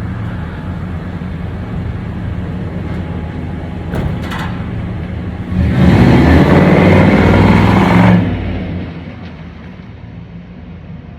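Chevrolet Impala SS clone's V8 engine idling, then revved hard for about three seconds from about halfway in before dropping back to a steady idle.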